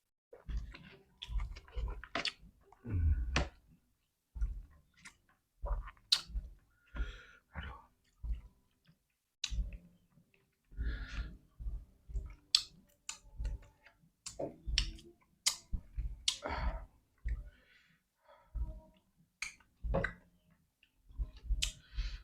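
A person chewing and smacking their lips close to the microphone while eating rice with fried chicken, with irregular wet clicks and short bursts.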